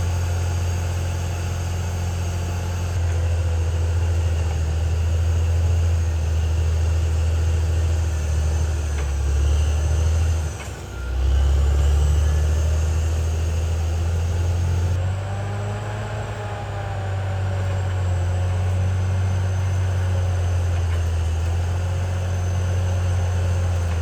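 Caterpillar D6R XL bulldozer's diesel engine running steadily, with a thin high whine over it; the engine note drops out briefly about ten seconds in and then picks up again.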